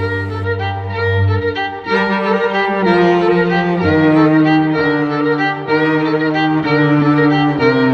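Music: bowed string instruments, violin with lower strings, playing slow sustained notes that change roughly once a second.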